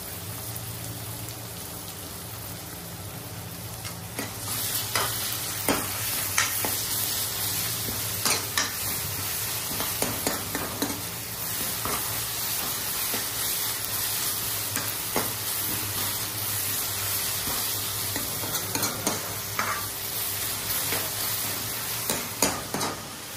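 Sliced onions sizzling in hot oil in an iron kadai while a metal spoon stirs them, scraping and knocking against the pan at irregular moments. The sizzle grows much louder about four seconds in, once the onions are stirred into the oil.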